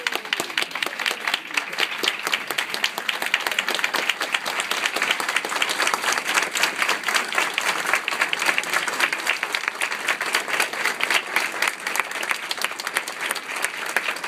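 A large audience applauding: dense, steady clapping from many hands that keeps going without a break.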